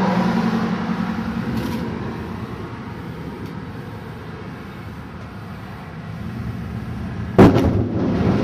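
A pickup truck drives past close by, its engine and tyres fading over the first few seconds. Near the end a sudden loud thunderclap breaks from the supercell and rumbles on.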